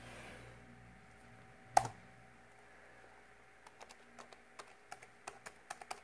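Typing on a ThinkPad X220 laptop keyboard: one firm key press a little under two seconds in, then a quick run of light key clicks over the last couple of seconds as a password is typed.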